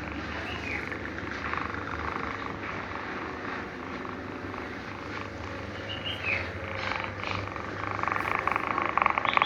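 A sleeping cat snoring, a steady breathy sound that grows a little louder near the end.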